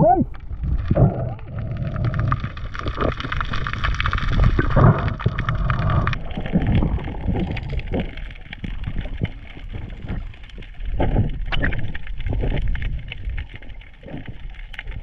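Underwater camera audio from a freediver swimming along a rocky reef: muffled water noise and low rumble, with irregular knocks and clicks from the camera and its housing being handled. The sound changes abruptly about six seconds in, when the higher hiss drops away.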